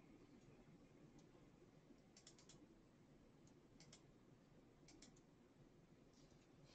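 Near silence with faint computer-keyboard typing: short runs of a few quick key clicks about two, four and five seconds in.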